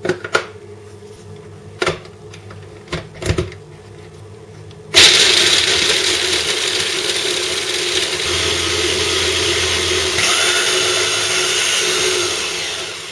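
Electric mini chopper running steadily for about seven seconds, its blade grinding almonds, garlic cloves and fried bread, brightening in tone partway through before winding down near the end. Before it starts, a few clicks and knocks as the lid and motor head are fitted onto the bowl.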